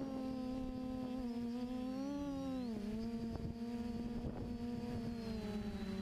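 FPV quadcopter motors and propellers buzzing, heard from the onboard camera, the pitch shifting with the throttle and dropping about three seconds in, with a rumble of wind noise underneath.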